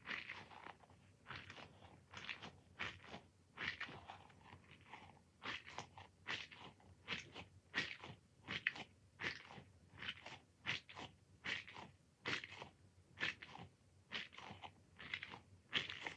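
Squishy ball being squeezed over and over, each squeeze giving a short crackly squish, about one or two a second at an uneven pace.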